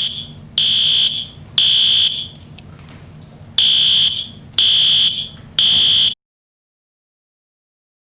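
Fire alarm sounding in a temporal-three pattern: loud, high-pitched beeps of about half a second, three at a time with a pause between groups. It cuts to dead silence about six seconds in.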